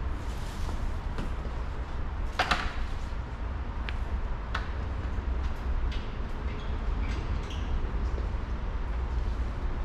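Water running steadily from a hose at full pressure into a pressure washer trailer's 200-gallon tank, a low continuous rush with a few light knocks, the loudest about two and a half seconds in.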